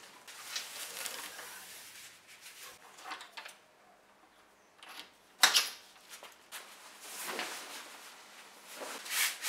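Rooftop-tent canvas rustling and being handled, with small clicks, as a metal support pole is fitted into the tent; a single sharp knock about five and a half seconds in is the loudest sound.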